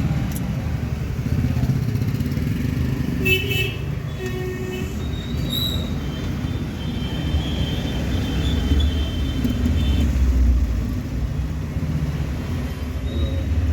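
Road traffic with a steady low engine rumble. A short horn toot comes about three seconds in, and a longer high-pitched horn tone follows a few seconds later.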